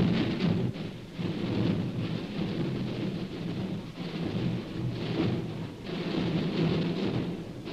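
Continuous rumble of massed drums rolling, swelling and ebbing in waves.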